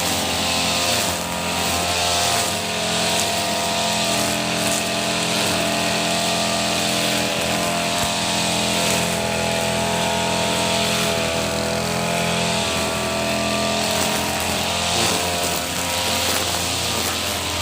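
Petrol brush cutter (grass-cutting machine) engine running steadily at high speed.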